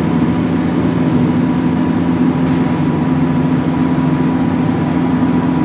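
A steady mechanical hum, unchanging throughout, with a few fixed low tones and a faint higher whine.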